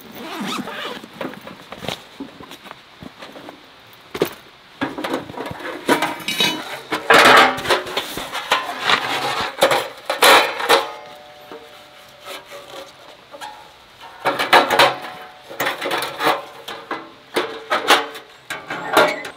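Metal panels and the grate of a folding stainless-steel fire box clattering and clinking as they are handled and slotted together: sharp metallic clanks, some with a short ring. They come in two busy runs, one in the middle and one near the end, with quieter rustling between.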